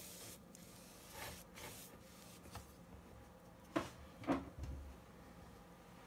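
Watercolour painting tools being handled on a desk: soft brushing and rustling, a faint click, then two sharp taps about half a second apart a little after the middle, followed by a low thud.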